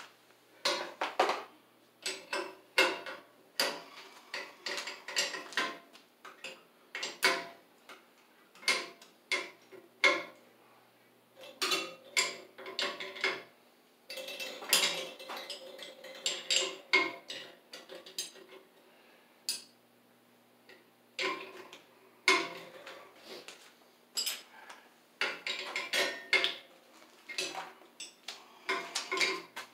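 Irregular metallic clinks, taps and clatter of hand tools and small metal parts being handled at a boiler during work to remove and rewire its circulating pump. A faint steady hum runs underneath.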